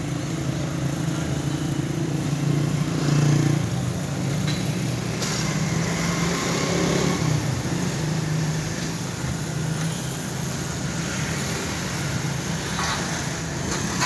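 An engine running with a steady low hum, loudest about three seconds in and fading after about ten seconds, over outdoor noise.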